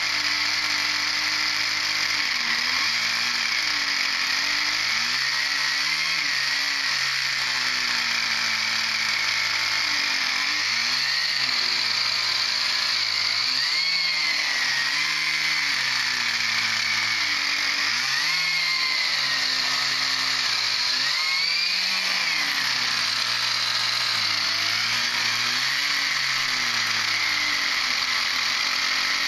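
Small pull-start model engine of a rebuilt diesel-electric model tram running continuously on its first start, its speed rising and falling every few seconds.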